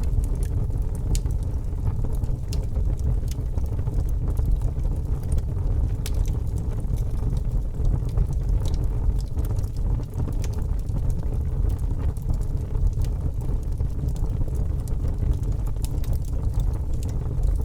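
Fire burning: a steady low rush of flames with scattered sharp crackles and pops.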